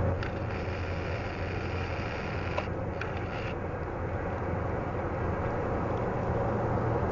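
Airbus A330-900neo's Rolls-Royce Trent 7000 turbofans running at taxi power as the airliner rolls past: a steady low rumble with a hiss above it.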